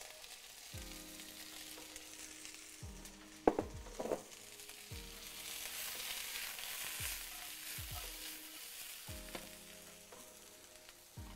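Stir-fry vegetables sizzling in hot oil in a nonstick frying pan, the sizzle swelling as the pan is tossed about halfway through. Two sharp knocks a little over three seconds in.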